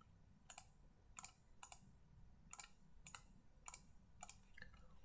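Faint computer mouse clicks, about eight to ten in five seconds, several in quick pairs.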